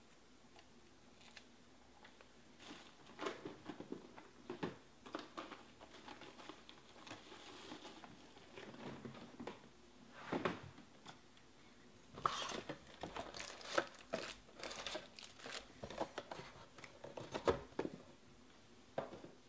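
Plastic shrink wrap and foil card packs crinkling and tearing in irregular bursts, with a few sharp clicks, as a hobby box of baseball cards is unwrapped and its foil packs are taken out.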